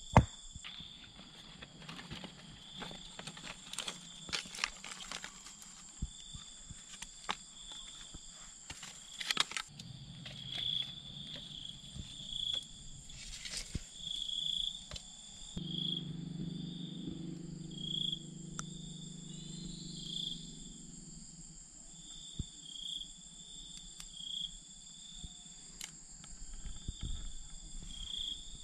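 Insects chirring steadily, a high continuous drone with a pulsing chirp beneath it. Over this come scattered knocks and clacks of dry bamboo pieces being handled and stacked.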